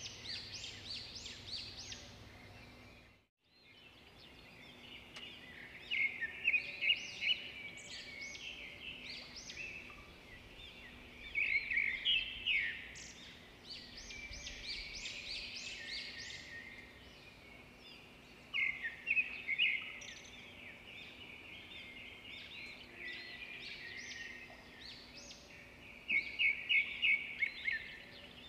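Small birds chirping in repeated bursts of quick, high notes over a faint steady background, with a brief dropout about three seconds in.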